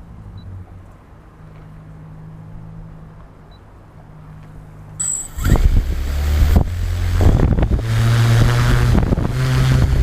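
Quadcopter's electric motors and propellers humming steadily. About five seconds in, loud gusting wind buffeting the camera's microphone sets in over the motor hum.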